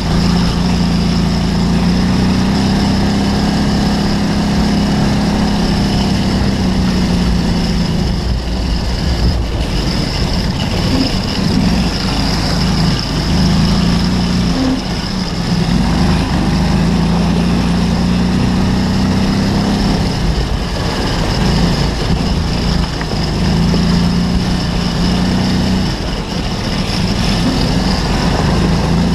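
Off-road buggy's engine running under load, its pitch rising, holding and dropping several times as the throttle is worked, over a steady rumble with knocks from the rough ground.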